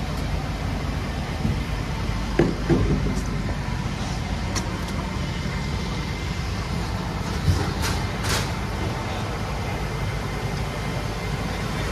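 Steady low rumble of vehicle engines idling, fire trucks among them, over the hiss of a rain-soaked street. A few brief louder sounds come through about two and a half seconds and eight seconds in.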